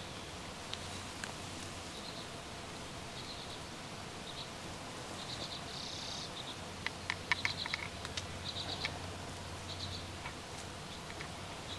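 Forest ambience: short, high chirps repeating every second or so, with a quick flurry of sharp clicks about seven seconds in.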